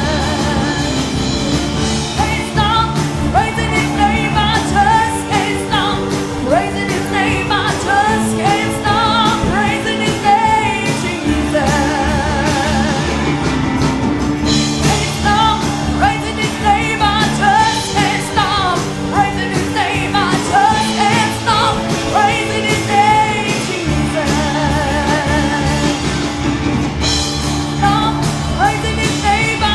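A live gospel praise song: singers with wavering, vibrato-laden voices over a band playing with a steady beat.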